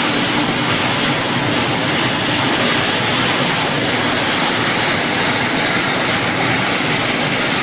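Wood pellet production line machinery running: a loud, steady, even mechanical din with no distinct rhythm or tone.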